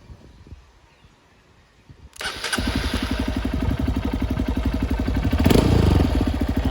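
Honda CRF150L's single-cylinder four-stroke engine starting about two seconds in, then idling with a fast, even, raw exhaust beat through the Exos X6 pipe with its silencer removed. The engine note swells briefly a little past halfway.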